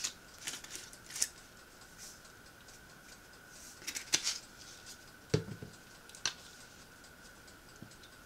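Spice shaker jars being handled: a few separate clicks and knocks as jars and lids are picked up, shaken and set down on the countertop, the dullest knock about five seconds in, over a faint steady high-pitched tone.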